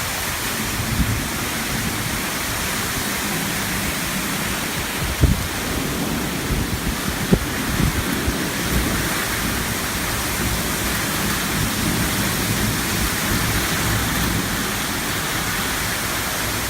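Heavy rain and strong wind of a severe thunderstorm, a steady rushing hiss, with a few short low thumps about one, five and seven seconds in.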